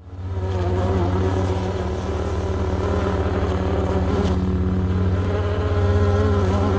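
Designed insect-swarm sound effect: the buzzing of many bees, deepened, layered with a mechanical overlay and a deep lightsaber hum. It fades in over the first half second and then holds a steady, low, fluttering drone.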